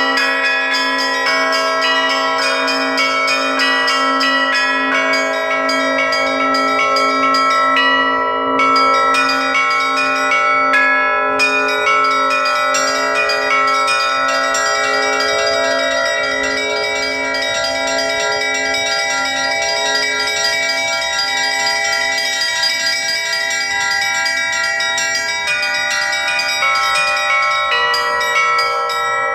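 A set of Russian Orthodox church bells cast by the LITEKS foundry, rung by hand in a traditional peal: a low bell struck steadily about once a second under quick repeated patterns on the small chiming bells, all ringing on together.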